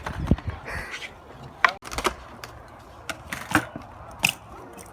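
BMX bike being ridden on hard ground: a low rolling rumble from the tyres, broken by about six sharp knocks and clacks from the bike's parts striking.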